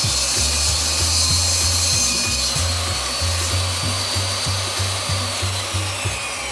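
Jobsite table saw running as it rips a wooden board; its high whine slides down in pitch near the end. Background music with a steady bass beat plays underneath.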